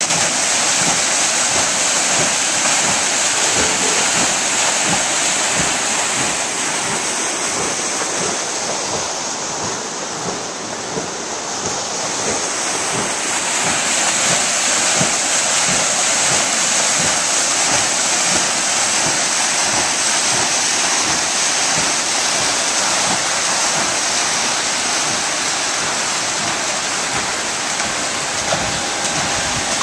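White water churning out of the outlet of an Archimedean screw hydro turbine and over the river weir beside it: a loud, steady rush of water, briefly a little duller about a third of the way through.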